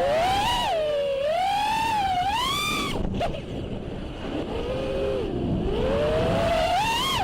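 FPV freestyle quadcopter's brushless motors and propellers (iFlight Xing 2206 2750kv) whining, the pitch rising and falling with the throttle. About three seconds in the throttle drops, so the whine falls and quietens for a couple of seconds, then it climbs back up near the end.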